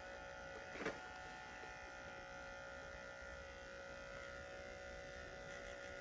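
A faint, steady electrical buzz made of several steady tones, with one short sharp noise about a second in.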